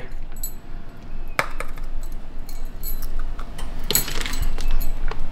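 Glass and kitchenware clinking and knocking as they are handled: a sharp clink about a second and a half in and a cluster of knocks near four seconds.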